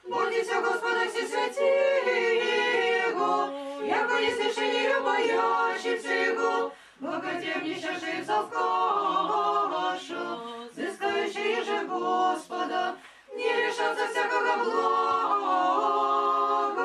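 Orthodox church choir singing a liturgical hymn a cappella, in about four phrases with short breaths between them.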